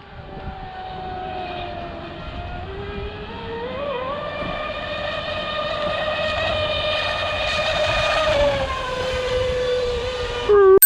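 High-pitched whine of a fast RC speedboat's brushless electric motor. The pitch climbs about four seconds in as the throttle opens, holds high, then drops near the end as it eases off, and the whine grows louder over the clip.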